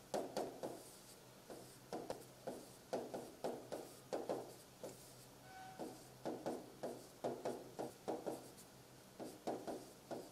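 Stylus tapping and scratching on a pen tablet while numbers are handwritten: short, faint strokes in quick clusters, a few per second, with brief pauses between figures.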